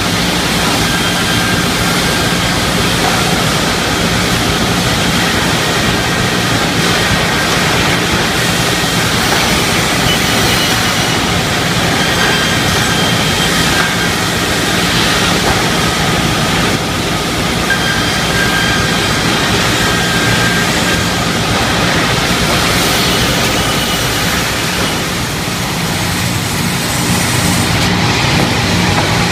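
Pallet board saw machine running: a steady motor hum under loud continuous sawing noise, with short high whines now and then.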